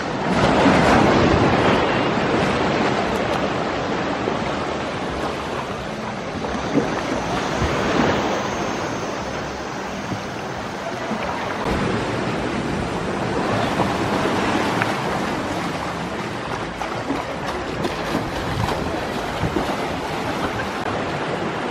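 Ocean surf breaking on a beach, the rush of the waves swelling and easing every several seconds, with wind buffeting the microphone.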